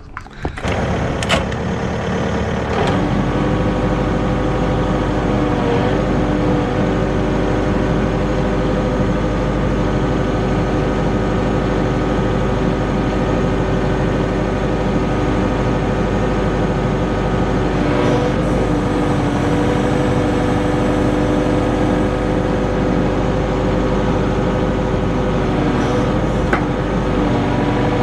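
Kubota KX080-3 excavator's diesel engine and hydraulics running steadily, settling in during the first few seconds, with the pitch dipping briefly three times as the machine is worked to test the newly fitted thumb pin and shims.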